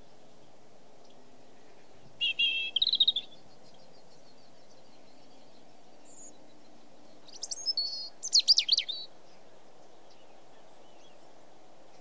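A small songbird singing two short phrases of rapid high notes, each about a second long and about five seconds apart, over steady low background noise.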